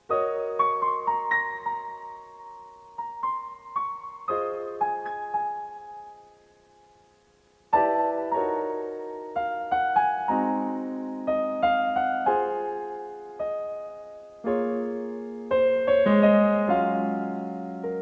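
Solo piano music: a slow melody of struck notes and chords that dies away into a short pause, then a second phrase begins about eight seconds in.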